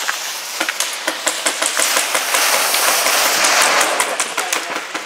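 Airsoft guns firing in close-quarters play: many rapid, irregular sharp clicks and snaps over a steady hiss.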